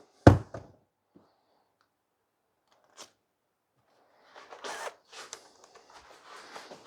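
Hands handling a small magnet and screw. There is a sharp click just after the start and a faint tick about three seconds in, then a couple of seconds of rustling and scraping.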